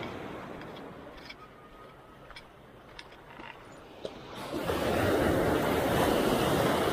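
Small sea waves washing against a rock revetment, swelling into a loud rush of breaking surf about four and a half seconds in. A few faint clicks come before the rush.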